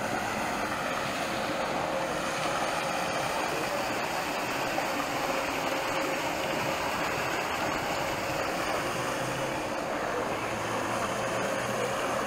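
Paddle-wheel pond aerator churning and splashing the water steadily, with the even hum of its motor.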